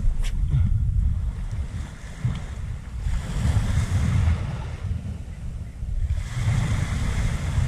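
Wind buffeting the microphone over small waves washing onto a sandy beach, the wash swelling and falling back twice. A single sharp click just after the start.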